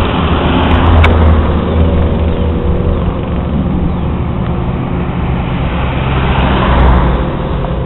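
Road traffic: cars driving past close by, engine hum and tyre noise, swelling louder about a second in and again near the end as vehicles pass. A brief click about a second in.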